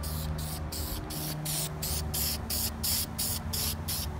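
Aerosol spray can of vinyl coating hissing in quick short bursts, about four a second, as the nozzle is pulsed on and off.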